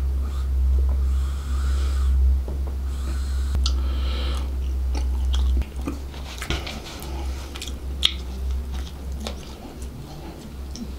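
Drink being sucked through a plastic straw from a small carton in two long drawn pulls, then a crusty bread roll torn apart by hand, its crust crackling with a sharp snap partway through.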